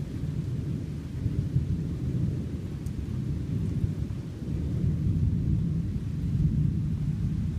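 Thunder rumbling in a low, continuous roll, with small swells and no sharp crack.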